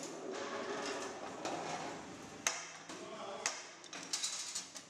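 Steel sheet being cut into a circle on a hand-lever metal shear: a few sharp metallic clanks as the plate is cut and shifted, the loudest about two and a half seconds in and another about a second later.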